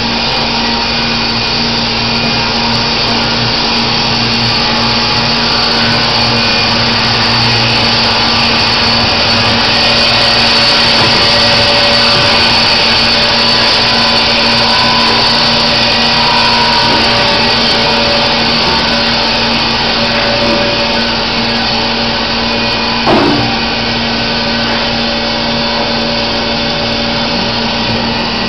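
Band sawmill running steadily with a constant hum, slightly louder through the middle stretch. A single sharp knock about 23 seconds in.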